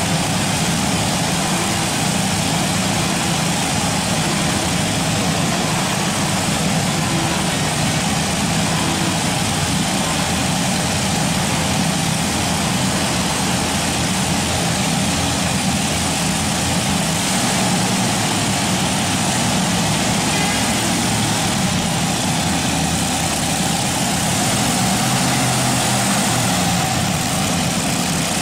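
Modified pulling tractor's several supercharged V8 engines running, a loud, steady engine drone with no letup.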